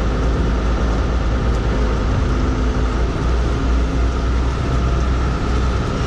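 Mini excavator's diesel engine running steadily as it works its arm and bucket.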